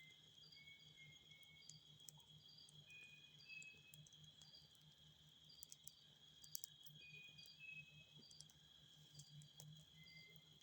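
Faint forest ambience: a steady, high-pitched insect trill runs throughout. A short phrase of quick chirping notes from another animal recurs every three to four seconds, with scattered faint clicks.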